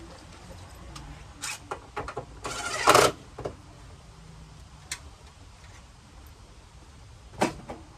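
Knocks and clunks of parts and tools being handled during hands-on work on the truck's front end, with a short scraping slide about two and a half seconds in that is the loudest sound, and a sharp clunk near the end.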